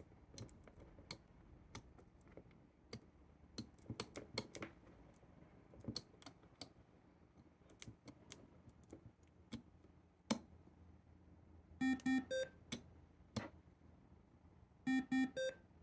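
Scattered clicks of buttons being pressed on the homemade Verilog alarm clock. Twice, about twelve and fifteen seconds in, a brief run of electronic beeps sounds from the clock.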